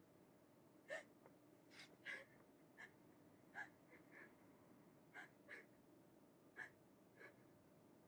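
A young woman's faint, shaky gasping breaths, about ten short catches of breath at uneven intervals, as in quiet crying.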